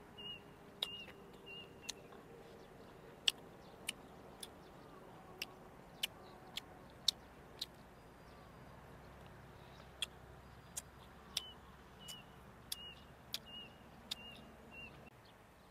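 Close-miked chewing of stir-fried chicken intestine, heard as sharp wet mouth clicks and smacks, roughly one every half second to second.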